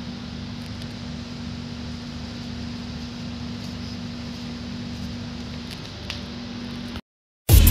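A steady mechanical hum with a faint hiss and a few faint light clicks, cut off abruptly near the end; bright background music starts just after.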